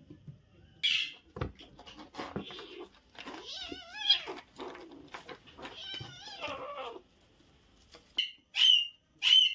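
Young kittens meowing: a sharp cry about a second in, a few longer wavering meows in the middle, and three short high mews near the end.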